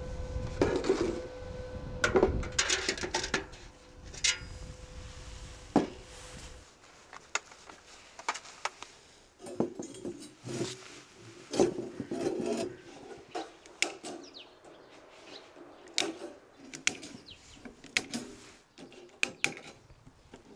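Wire mesh and a welded rebar frame clinking and rattling as the mesh is handled and fitted into the frame: irregular sharp metal taps and clicks, some in quick clusters. A low steady rumble sits under the first third and stops abruptly.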